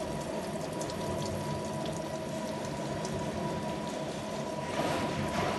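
Gear hobbing machine cutting the teeth of a large spur gear, running steadily with a constant whine, over a hiss of coolant oil pouring onto the cut. The hiss swells briefly near the end.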